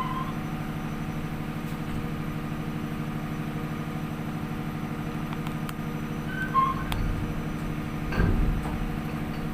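Ship's engine running steadily, a low even hum, with a few faint clicks and a brief low knock about eight seconds in.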